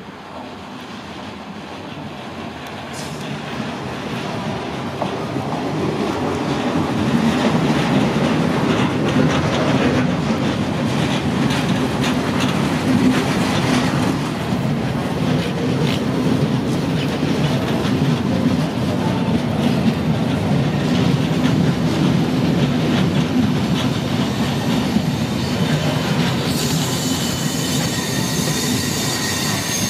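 Red-and-white ŽSR passenger coaches rolling past close by, the wheels clattering and rumbling, growing louder over the first several seconds and then holding steady. Near the end high, steady wheel squeal sets in as a coach train moves along a station platform.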